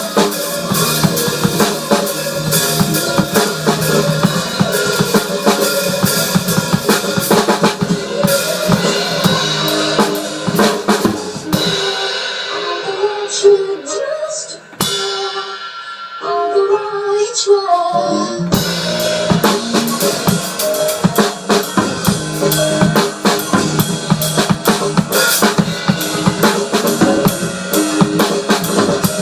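Drum kit played with a dense run of fast hits over pitched music. About twelve seconds in the hitting largely drops out for several seconds, leaving quieter pitched music, then the full kit comes back in.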